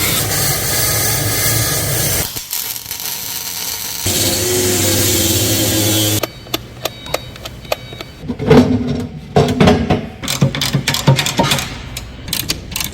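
Stove-fabrication workshop work: a power tool running steadily, pausing briefly around two seconds and starting again, then stopping about six seconds in, followed by a run of irregular sharp knocks and clanks, as of steel parts being struck and handled.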